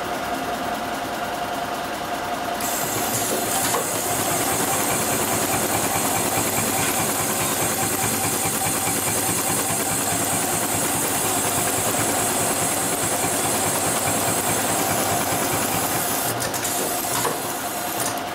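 HighTex 728-15 two-needle compound-feed heavy-duty sewing machine stitching at a steady speed, a fast even clatter of needle strokes with a hiss, starting a couple of seconds in and stopping near the end. A steady high hum runs underneath.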